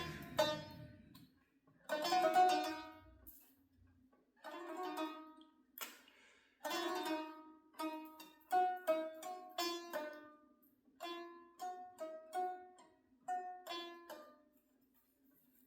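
A plucked string instrument playing single notes one after another in uneven runs, each note starting sharply and fading.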